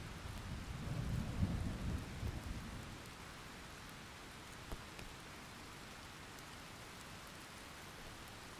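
Thunderstorm: a deep roll of thunder swells and fades over the first three seconds, over steady rain falling on a surface. A single sharp drip or tap sounds near the middle.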